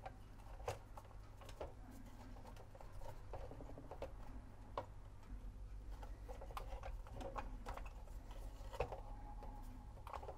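Faint, irregular clicks and light taps of hands handling the metal chassis and rubber drive belt while stretching a new platter belt around the drum of a Sharp VZ-3000 vertical record player, over a steady low hum.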